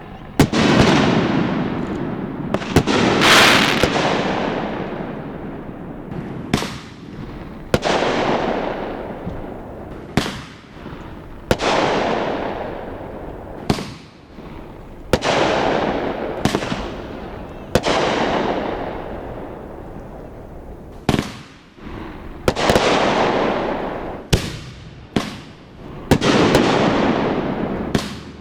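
Aerial fireworks shells bursting in quick succession, about one every one to two seconds. Each sharp bang trails off in a long fading rumble.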